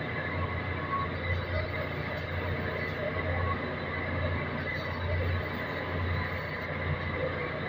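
Electric arc welding along a crack in a ship main-engine exhaust valve housing: a continuous crackling hiss with a low buzz that swells and fades as the arc is held.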